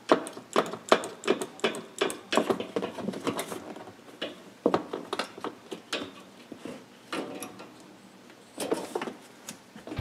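Scissors cutting the excess rubber dishwasher door gasket, with a run of sharp clicks and knocks from the blades and hands working against the tub. The clicks come quickly at first, thin out, and pick up again briefly near the end.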